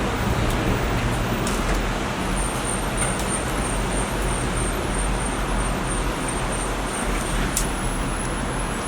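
Steady background rumble and hiss, like road traffic.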